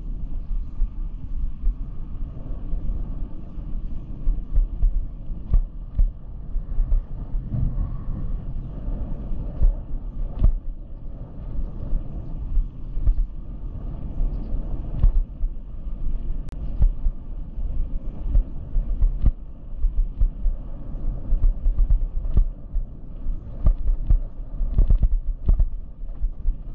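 Wind buffeting the microphone and tyre rumble while riding an e-bike on a country road: an uneven low rumble with scattered knocks from bumps.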